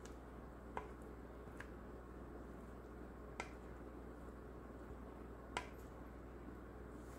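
A few faint, short clicks and soft scrapes, about four spread out, as a silicone spatula scrapes thick cooked fruit pudding out of a bowl onto a plate, over a low steady hum.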